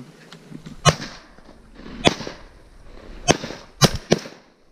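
Five shotgun shots at ducks over the decoys, spread over about three seconds, the last two in quick succession.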